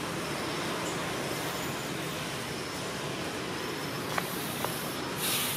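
Steady outdoor background noise, with two sharp clicks about half a second apart late on and a short, high hiss just before the end.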